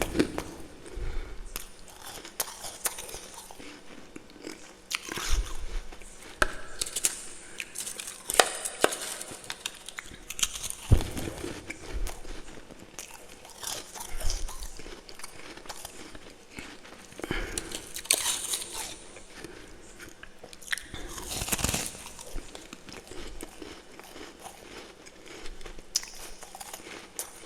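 Close-up crunching and chewing of freezer frost and ice in the mouth, in repeated irregular crunchy bites with heavier crunches now and then.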